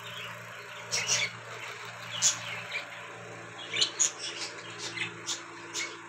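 Budgerigars chirping: short, sharp, high calls in a scattered string, about a second in, again just after two seconds, and in a quicker run of chirps from about four seconds on, over a faint steady hum.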